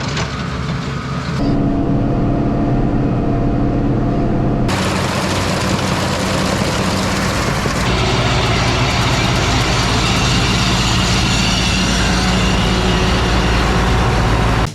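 A large engine running steadily, with a rushing noise that jumps louder about a second and a half in and again around five seconds in.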